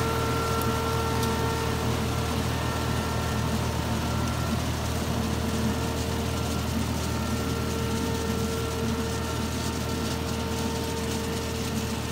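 KEFELI KF1800 hazelnut harvester running behind its tractor: a steady, unbroken machine drone with a constant high whine over the engine's low hum.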